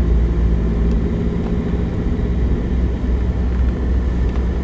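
Car on the move heard from inside its cabin: a steady low rumble of engine and road noise.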